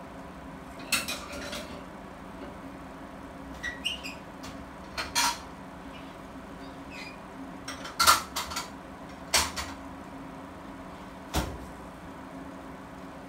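Egg frying in oil in a covered pan, with hot oil spitting in sharp, irregular pops about eight times over a steady low hum.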